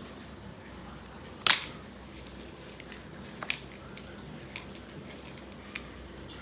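A loud sharp knock about a second and a half in, a second one about two seconds later, then a few faint ticks, over a low steady room hum.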